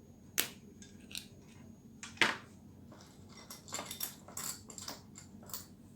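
Light clicks and clinks of seashells and pearl beads being handled and set against each other, with a sharper knock a little past two seconds in and a quick run of small clicks in the second half.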